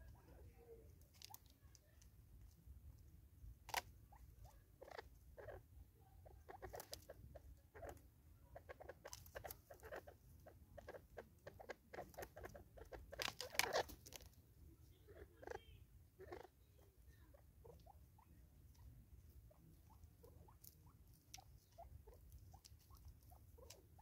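Francolins pecking seed from a plastic bottle feeder: irregular light taps and clicks of beaks on plastic and loose seed, busiest in the first half with a burst of louder clicks a little past the middle.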